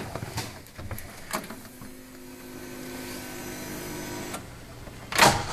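Ignition key clicks on a John Deere Gator 825i, then a steady electric hum for about two and a half seconds as the fuel pump primes the fuel-injected engine. Near the end a sudden loud burst as the starter kicks in for a cold start.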